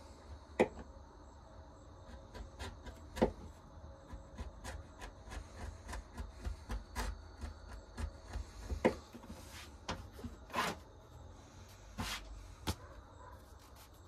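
Irregular light clicks and knocks of tools and a leather sheath being handled on a workbench, with a few sharper knocks and a couple of short rubbing strokes near the end.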